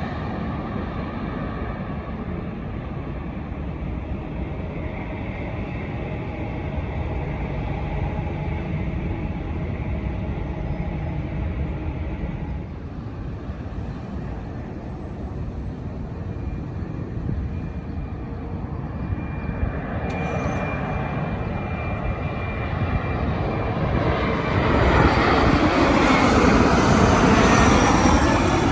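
Jet airliner engines on landing approach: a steady rumble with a faint whine through the first half. About 25 seconds in, it swells to its loudest as an aircraft passes close.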